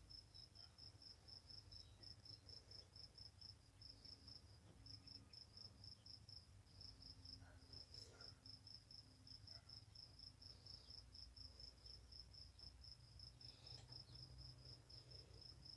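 Near silence with a faint cricket chirping steadily, about four short high chirps a second, over a low rumble.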